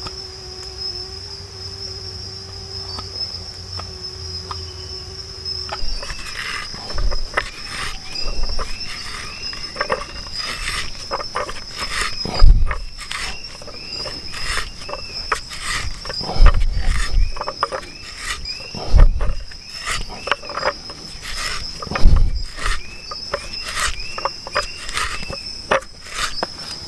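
Wood being bored with a hand-turned auger bit: repeated short creaking squeaks and crunching of the wood fibres, broken by a few heavy thumps. Under it, crickets chirr steadily, and for the first six seconds they are all that is heard, with a faint low hum.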